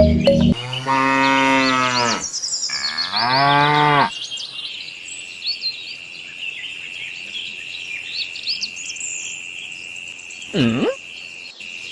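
Cows mooing: two long moos in the first four seconds and a short one near the end, over a steady high insect trill and scattered bird chirps.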